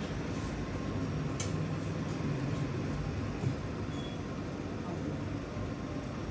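A steady low hum with background noise, broken by one faint click about a second and a half in.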